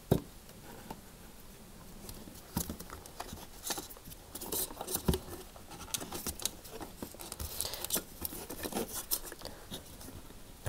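Small irregular clicks and rustles of hands fitting a metal hose clamp onto a dishwasher's rubber pump hose, metal and plastic knocking lightly.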